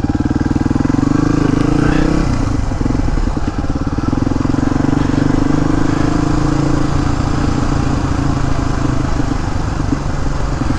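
Suzuki DR250S single-cylinder four-stroke motorcycle engine running under way through a Dominator R aftermarket exhaust, its note dipping about two seconds in and then holding fairly steady.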